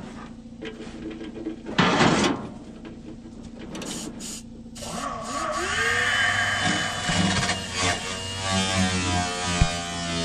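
Hand tools working on a rusted cab cowl panel, with scattered clicks and a loud scrape about two seconds in. About halfway through, a steady humming sound with several held tones comes in.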